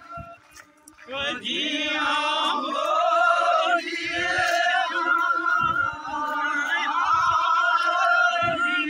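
Male voices singing a chant-like melody with wavering, ornamented notes. The singing starts about a second in after a brief lull and carries on, with a few low thuds underneath.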